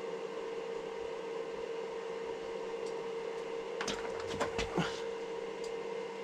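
MIG welder humming steadily while its wire-feed motor pushes wire through the torch lead, with the contact tip off; the wire has not yet come out of the torch. A short burst of clicks and knocks comes about four seconds in.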